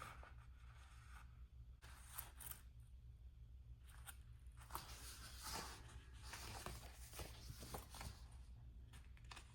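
Faint, irregular rustling and crinkling of paper sticker sheets being handled and flipped through, over a steady low hum.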